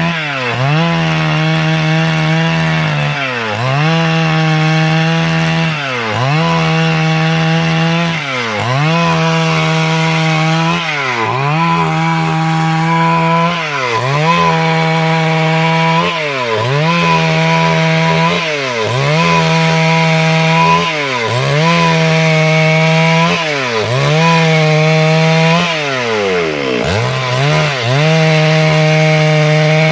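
Stihl MS 382 two-stroke chainsaw running at high speed while cutting wood. Its pitch dips briefly and comes back up about every two and a half seconds, a dozen times over.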